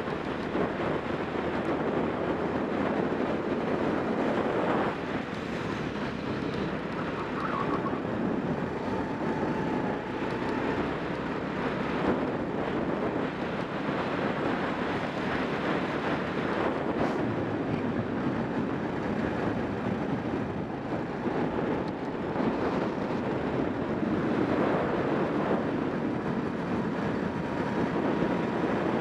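Racing go-kart engine running at speed, heard from an onboard camera mounted on the kart, mixed with heavy wind rush over the microphone.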